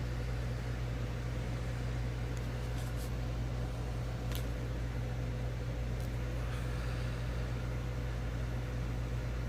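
Steady low mechanical hum with a faint higher tone, and a few light ticks.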